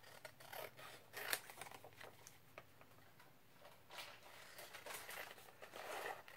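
Scissors cutting through two glued-together book pages: a series of faint, irregular snips as the margin is trimmed, the sharpest about a second in.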